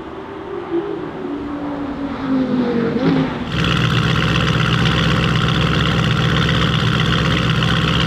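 Audi RS6 C8's twin-turbo V8, its exhaust particulate filter deleted, revving up and down. About three and a half seconds in it gives way suddenly to a louder, steady high-revving note held at one pitch.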